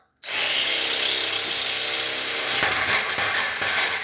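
Cordless drill boring a hole for a gate-wheel bracket, running steadily at full speed with a constant motor whine, starting just after the beginning and stopping at the end.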